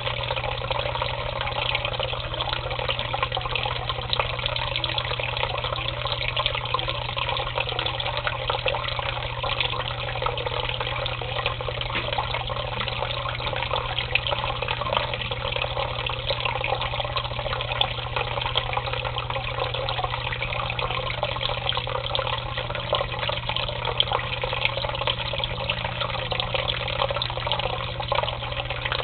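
Water pouring in a steady stream into shallow water in a tub, splashing continuously, over a steady low hum.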